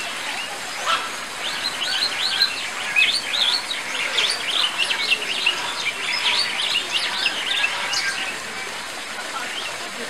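Birds chirping: a dense chorus of many quick, high chirps overlapping, busiest through the middle, over a steady background hiss.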